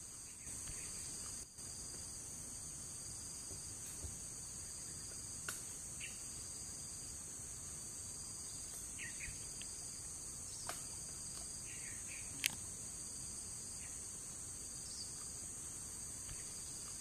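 Steady, high-pitched chorus of insects in tropical forest, a continuous buzz with no breaks. A few brief bird chirps and several sharp clicks sound over it, the loudest click about twelve seconds in.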